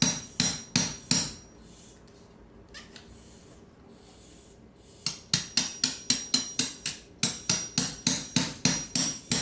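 Hammer blows on a plaster-covered wall corner, each with a short ring: four quick blows, a pause of a few seconds, then a steady run of about three blows a second, as the corner is knocked loose to free a bird trapped inside the wall.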